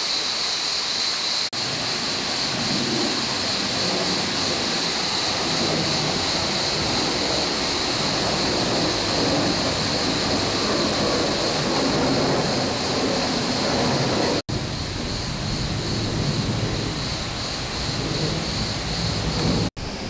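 Steady rush of a waterfall and cascading stream, with a steady high-pitched whine above it. The sound cuts out for an instant twice, in the middle and just before the end.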